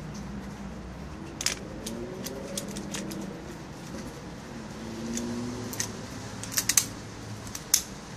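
Sharp plastic-and-metal clicks and snaps of a paintball marker being handled, about eight of them scattered irregularly, including a quick run of three a little before the end.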